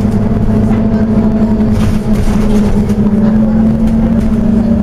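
Scania OmniCity single-deck bus heard from inside the passenger saloon while under way: a steady low engine drone, with a fainter whine above it that wavers slightly in pitch.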